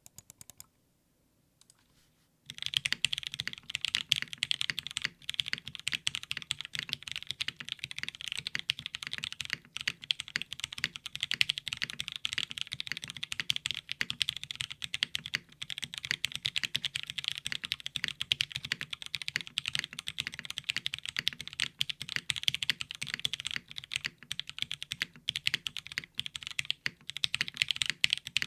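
Fast, continuous typing on a Geon Frog TKL mechanical keyboard with an aluminium plate, lubed Pewter switches and DCS keycaps: a dense stream of keystroke clacks. It starts in earnest about two seconds in, after a few stray key presses.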